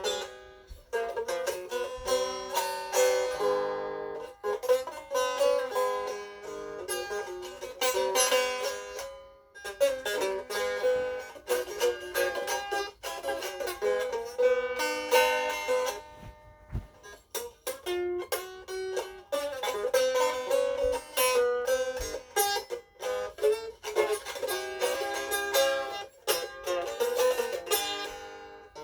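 Banjo picked solo, runs of quick plucked notes in short phrases broken by brief pauses.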